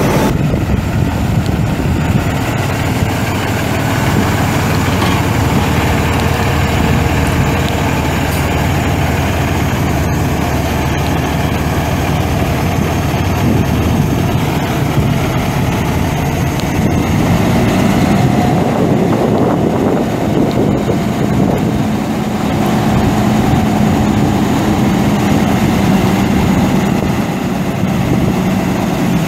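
Cummins ISX 14.9-litre inline-six turbo diesel of an International 9400i semi truck running steadily; its pitch lifts slightly a little past halfway and holds there.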